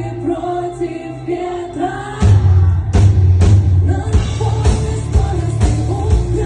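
Rock song with a sung melody; about two seconds in the full band comes in with drums and heavy bass.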